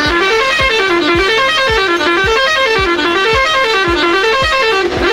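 Music with a steady thumping beat and a bright, horn-like lead melody that runs up and down in short repeating phrases.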